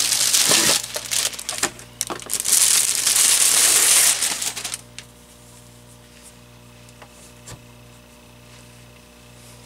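Plastic wrapping crinkling and rustling as speaker grille covers are pulled out of their packaging, for about the first five seconds. Then only a steady low mains hum, with a single short knock about two-thirds of the way through.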